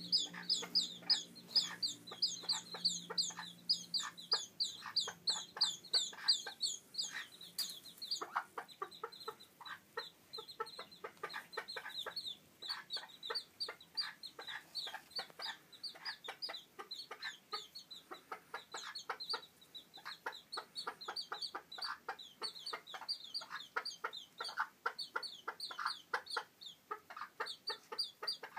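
Week-old chicks peeping over and over in short, high, falling notes, thickest in the first eight seconds, while the mother hen clucks repeatedly throughout.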